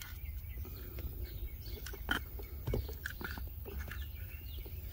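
Light clicks and taps of small plastic electronic module housings, a car's keyless entry receivers, being handled and set down side by side, over a low steady rumble.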